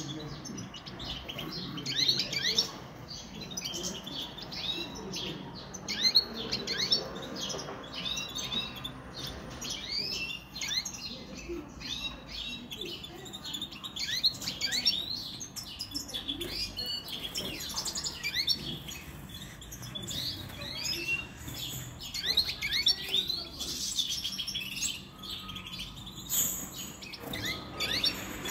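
Caged European goldfinches twittering and singing: a continuous run of quick, short chirps and trills.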